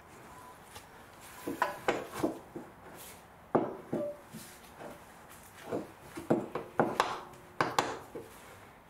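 Irregular knocks, clunks and scrapes as the old curved front lower control arm of an Audi A4 is wiggled loose and worked out of its mounting, a few of the knocks ringing briefly like metal.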